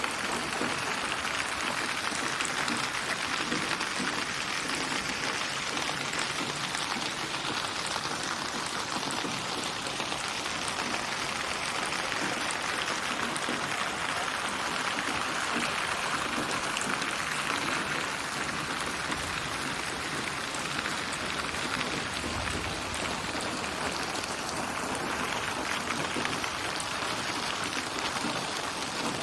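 Synthesised rain ambience: steady rainfall pattering on surfaces, spatialised binaurally so it seems to move around the listener, slowly swelling and easing in intensity.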